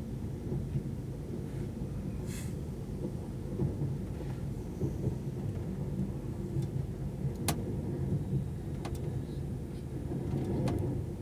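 Steady low rumble of a moving passenger train, heard from inside the carriage, with a few sharp clicks in the second half.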